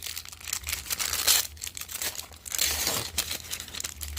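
Plastic wrapping and trading cards crinkling and rustling in the hands in a series of short, irregular rustles, as a stack of Magic: The Gathering foil land cards is handled.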